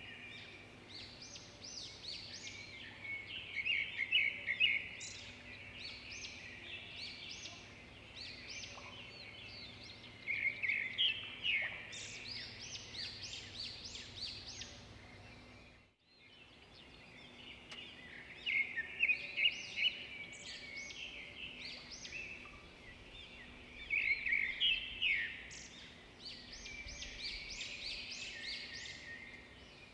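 Small birds chirping in a busy chorus of rapid, high, overlapping chirps that swell in bursts every few seconds. The sound drops out briefly about halfway through.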